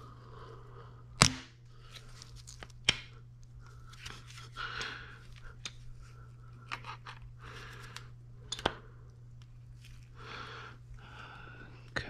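Metal clicks and knocks of tongue-and-groove pliers working on the timing chain of a Subaru FA20 engine: three sharp knocks, the loudest about a second in, among quieter handling noise, over a steady low hum.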